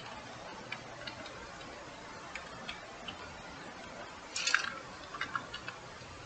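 Computer keyboard keys clicking in scattered taps, with a quick run of keystrokes about four and a half seconds in, over a faint steady room hiss.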